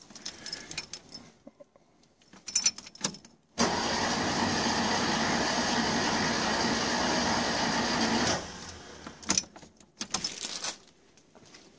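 Starter motor cranking the Citroën 2CV air-cooled flat-twin engine, a steady whirring spin of about four and a half seconds that starts and stops abruptly, with a few clicks before and after. The engine is being turned over to build oil pressure with an empty filter and pump; the oil warning light goes out during the cranking.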